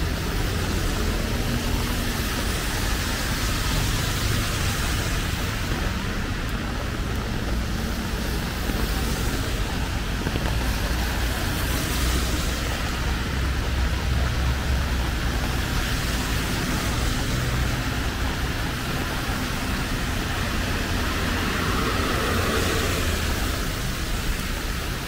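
Steady rain with car traffic passing on a wet road, a constant low rumble under the hiss of the rain.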